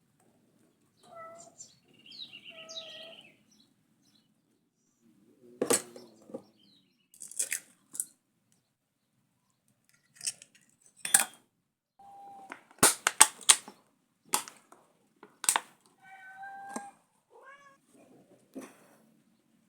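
A domestic cat meowing a few times in short, fairly level calls. Between the calls comes a series of sharp knocks and clatters, the loudest sounds.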